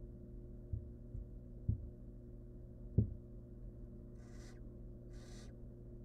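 Barn owl nestlings hissing, two short breathy hisses about a second apart near the end, after a few soft low thumps; a steady low hum runs underneath.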